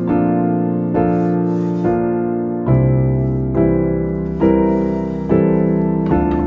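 Background piano music: sustained chords, a new one struck a little under once a second.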